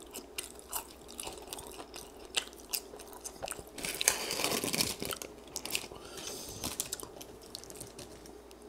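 Close-miked chewing of crispy french fries, with small crunches and wet mouth clicks. About four seconds in, a louder, longer rustle as fries are grabbed from their paper wrapper.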